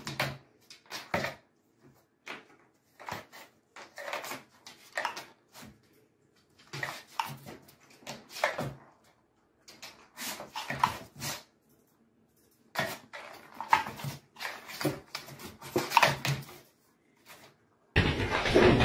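Irregular rustling, scraping and knocking of a cardboard box as a cat paws and digs around in it. A louder steady noise cuts in abruptly near the end.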